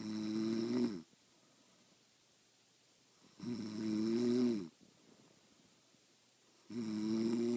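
A woman snoring in her sleep: three loud snores, each a pitched drone about a second long, coming about three and a half seconds apart.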